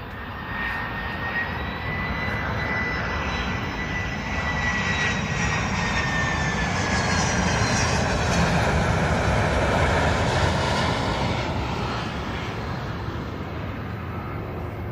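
Twin-engine jet airliner on landing approach with its gear down, passing low overhead: engine rumble and a high whine swell to a peak about eight to ten seconds in, then fade. The whine glides slowly down in pitch as the plane goes by.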